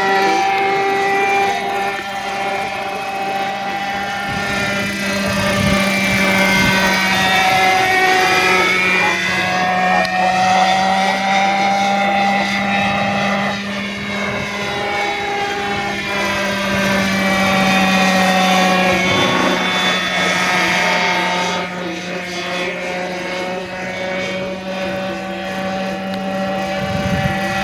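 Quarter-scale Vario Bell 47G model helicopter with a Zenoah 26 two-stroke petrol engine flying overhead: a steady engine buzz and rotor sound whose pitch rises and falls several times as it passes and manoeuvres.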